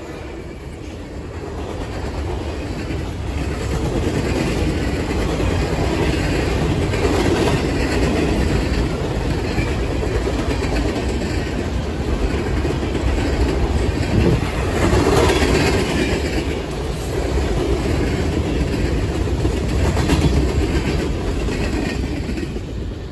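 Freight train cars (boxcars and hoppers) rolling past on the rails: a steady rumble with wheel clatter and a few sharper clanks. The sound falls away near the end as the last car goes by.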